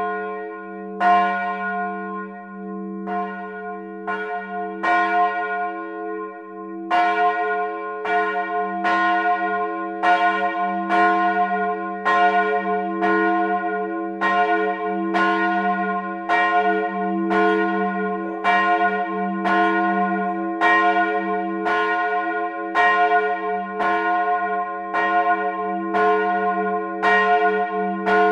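Two bronze church bells, tuned f' and as', swinging and ringing together in a full peal, recorded up in the bell tower. The strikes come about once a second, overlapping their long ringing tones, and grow denser about seven seconds in as both bells sound.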